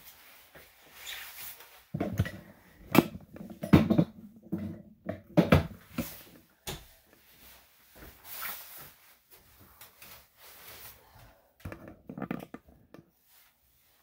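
Irregular knocks and thumps of things being handled and set down, several loud ones between about two and six seconds in and a few more near the end.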